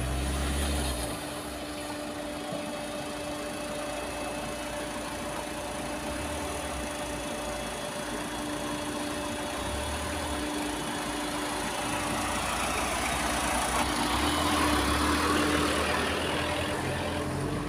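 Tata Winger van's diesel engine running at low speed as the van is manoeuvred to turn around, with a steady hum and a low rumble that swells a few times, most strongly about three-quarters of the way in.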